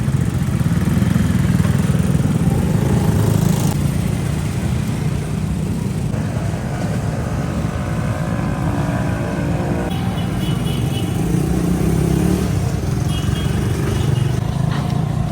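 Street motor traffic with motorcycle engines running: a steady low engine rumble that carries on throughout.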